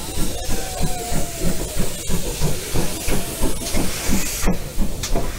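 Steam locomotive hissing steam, with a regular low pulsing beat about three to four times a second.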